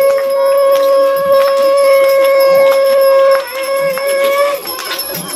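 Conch shell (shankh) blown in one long, steady note that breaks off about three and a half seconds in, followed by a shorter second blast lasting about a second.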